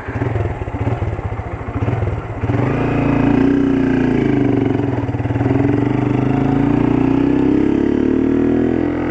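Honda CG Start single-cylinder motorcycle engine pulling away at low revs, then revving up about two and a half seconds in and running steadily at riding speed, with a slight rise and fall in pitch.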